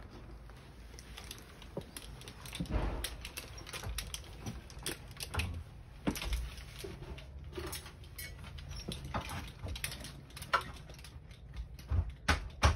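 Scattered, irregular knocks, clicks and rustling of someone shifting about and handling gear on wooden attic floorboards, with a few sharper knocks near the end.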